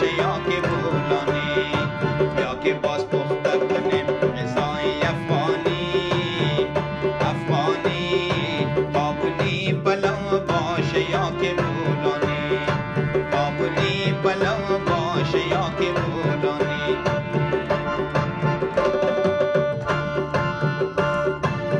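Background music: an Afghan song with a steady drum rhythm under a melody.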